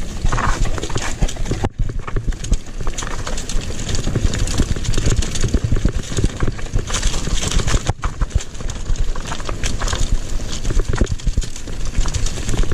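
Mountain bike ridden fast down a rocky trail: tyres and bike clattering over stones in quick, irregular knocks, over a steady rumble of wind on the action camera's microphone.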